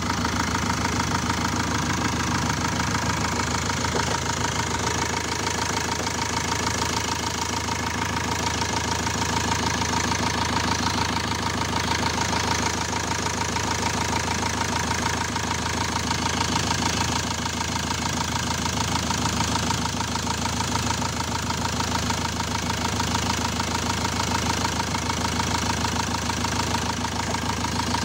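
Four-cylinder common-rail diesel engine of a Peugeot Boxer van idling steadily, with a fast, even injector clatter and a steady whine over a low hum.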